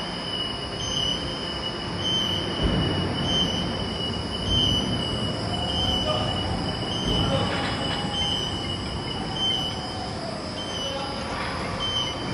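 Overhead bridge crane travelling along its runway rails with a suspended steel coil: a steady rumble of the wheels and drive, with a constant high tone over it.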